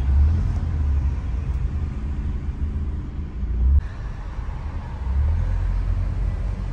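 Road and engine rumble from inside a moving car, a steady low drone that changes abruptly about four seconds in.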